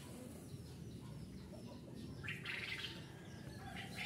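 Small birds chirping faintly over a low steady background noise, with a brief busier burst of calls about two seconds in.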